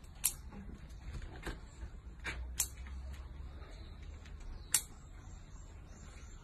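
Pliers-style dog nail clippers snipping through a French Bulldog's claws: several sharp clicks spaced unevenly, two of them much louder than the rest.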